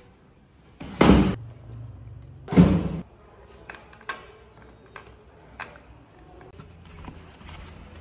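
Cardboard box thumping and scraping twice, about a second in and again near three seconds, as a monkey climbs into it; then scattered light taps and clicks of a plastic canister against the cardboard.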